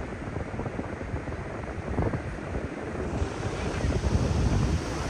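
Wind rumbling on the microphone over a steady rush of surf.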